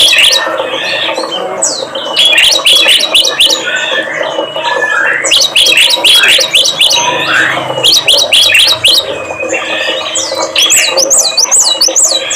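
Songbirds calling on a bird-lure recording. They give bursts of rapid, sharp, sweeping chirps, several a second, with short gaps and a few longer whistled notes between, over a steady low hum.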